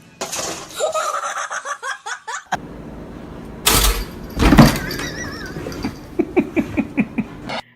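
Short pitched calls, two loud sudden knocks in the middle, then a person laughing in quick bursts near the end.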